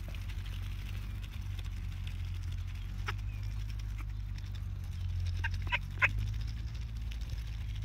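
Ducks dabbling grain from a hand, their bills working in the palm, with a few short, sharp sounds about three seconds in and again around five to six seconds in.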